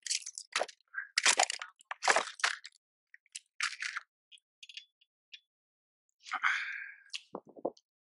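Irregular crackles, scrapes and knocks of close handling on a plastic fishing kayak, with a longer scrape about six seconds in and a few dull knocks near the end.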